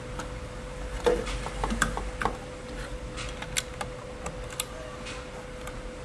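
Small plastic clicks and taps of wiring connectors being handled and pressed into place by hand, a loose cluster of sharp ticks from about one to five seconds in, over a steady hum.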